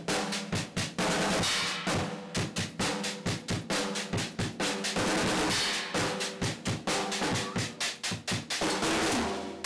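Acoustic drum kit played with sticks: a steady run of snare and tom strokes, about five a second, with cymbal crashes now and then.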